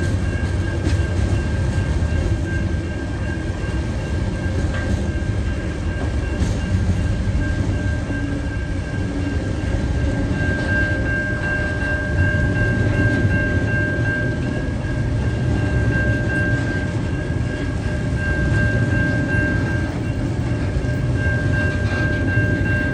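Container wagons of a TasRail freight train rolling past at close range: a steady heavy rumble with faint clicks from the wheels on the rails. A thin steady high tone runs over it and grows louder about halfway through.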